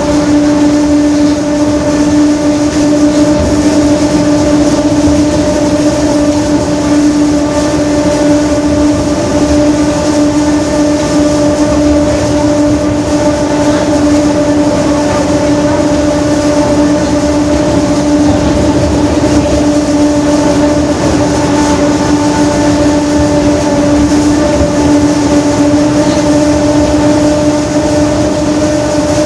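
Differential of a Mercedes-Benz OF-1721 bus howling very loud: a steady mid-pitched whine with a few overtones, holding one pitch over the rumble of the running bus.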